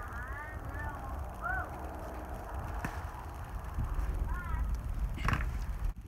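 Low rumbling handling noise on a phone microphone as cucumbers are handled on the vine, with a few short arched calls in the background and a sharp click about five seconds in.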